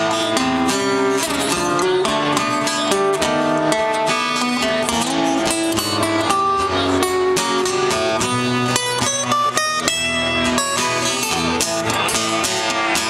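Live band playing a blues guitar solo: quick plucked guitar lines over a strummed rhythm accompaniment.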